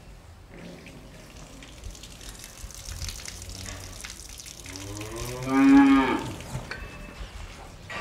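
Cow barn ambience: a cow moos once, loudly, a little past the middle, over a low barn background with scattered faint knocks.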